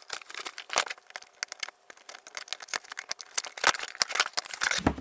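Cardboard toy box being handled and its end flap prised open: a rapid, irregular run of sharp clicks, scrapes and rustles of cardboard.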